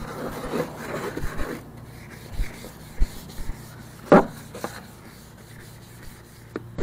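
Scrub brush rubbing back and forth over the grimy deck of a Suzuki Tiger Shark 770 jet ski: quick strokes for the first second and a half, then slower, fainter ones. A single brief squeak about four seconds in.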